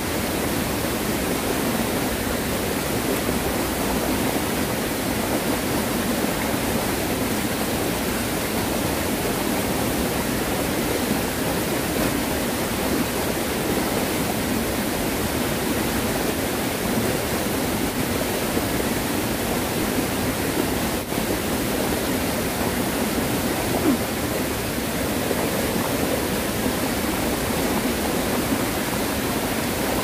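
Steady rushing of a mountain stream running high after days of heavy typhoon rain, white water pouring over rocks.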